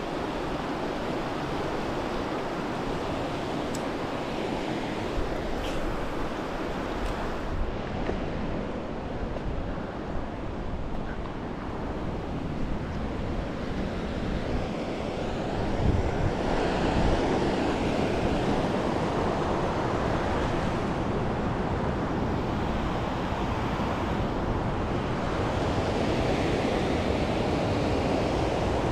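Mountain river rushing over rocks and rapids, a steady noise of running water that gets louder about halfway through, with wind buffeting the microphone.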